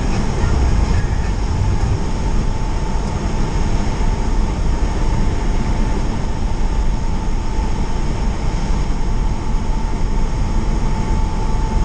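Steady road noise heard from inside a moving car in a highway tunnel: tyre and engine rumble, heavy in the low end, with a faint steady whine.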